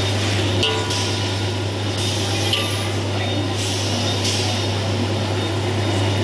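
Kitchen cooking noise: a steady low hum under a constant hiss, with a few light clicks, as the sambal with shrimp and eggs cooks.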